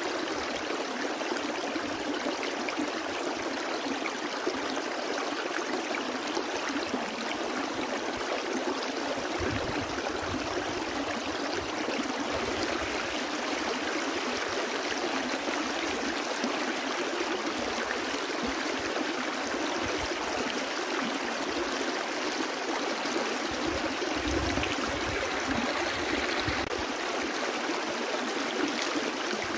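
A brook flowing: a steady, even rush of running water.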